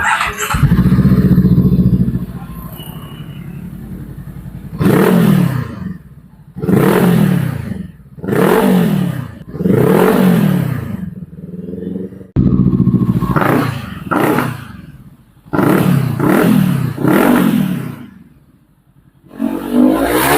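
Voge 525 DSX motorcycle engine revved through an aftermarket exhaust muffler during a sound check: a loud rev near the start, then about eight short throttle blips in two groups, each rising and falling in pitch.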